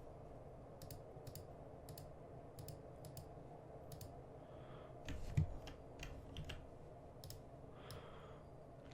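Faint, irregular clicking from a computer mouse and keyboard, about a dozen sharp clicks spread unevenly, over a low steady hum.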